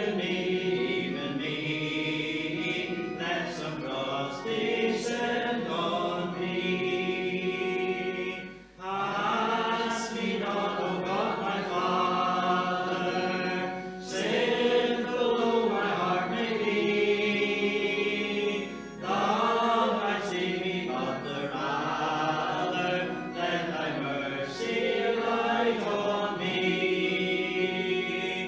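Voices singing a Christian worship song in long sung phrases, with brief breaths between phrases every few seconds.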